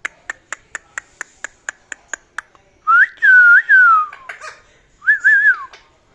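Indian ringneck parakeet clicking sharply about four times a second, then whistling: a long whistle that rises and dips and slides down at its end, and a couple of seconds later a shorter, wavering whistle.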